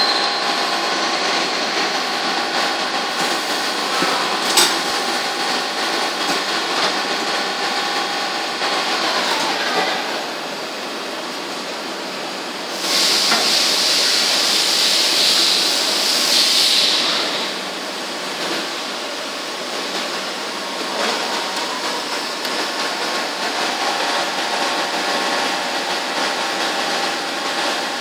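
Biglia B470 YMS Quattro CNC lathe running, a steady machine whine made of several tones that slide down in pitch about nine seconds in. A sharp click comes about four and a half seconds in, and a loud hiss sounds from about thirteen to seventeen seconds in.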